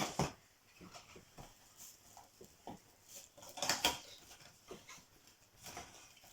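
Cardboard and plastic packaging being handled and torn open: scattered rustles and clicks, with a louder rip a little before four seconds in.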